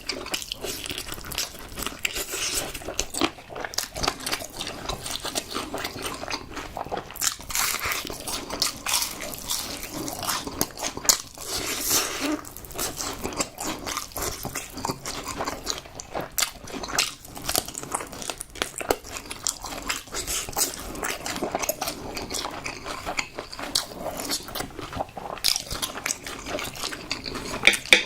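Crispy fried chicken being bitten and chewed close to the microphone: many sharp crackling crunches in quick, uneven succession.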